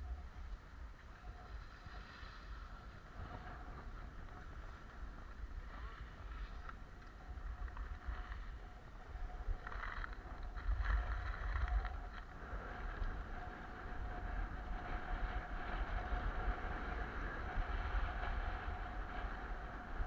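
Skis sliding and scraping over groomed snow on a downhill run, with wind buffeting the microphone in gusty rumbles that are strongest about halfway through.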